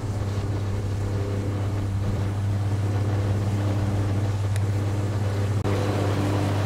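A powerboat's engine running steadily close by, a low even hum with overtones, over wind and water noise.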